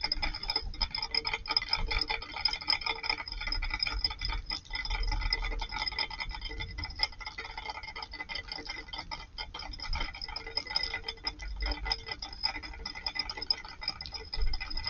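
A flock of Eurasian tree sparrows chirping and chattering, many quick short calls overlapping.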